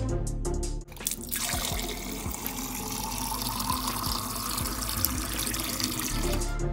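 Water from a kitchen tap running into a drinking glass in a stainless steel sink as the glass fills, a steady rushing splash that starts about a second in.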